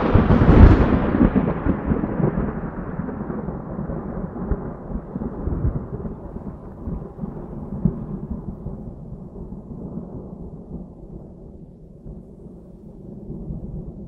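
A thunder-like boom sound effect, loudest at the start, trailing off into a long rumble that fades slowly over many seconds and swells faintly near the end.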